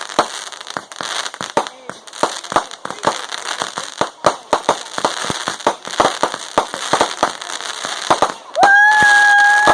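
Fireworks going off: a rapid, irregular string of bangs and crackles. Near the end a whistling firework lets out a loud, steady, shrill whistle that rises briefly at its start.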